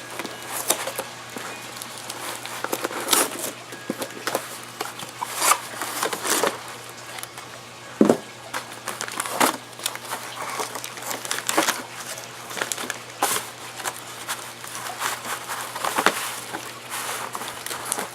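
Toy packaging and plastic parts being handled: irregular crinkling and rustling with scattered sharp clicks and knocks, the sharpest knock about eight seconds in.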